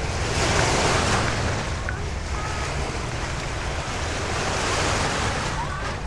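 Small lake waves breaking and washing up on a sandy shore, with two swells of surf, about a second in and near the end. A low wind rumble on the microphone runs underneath.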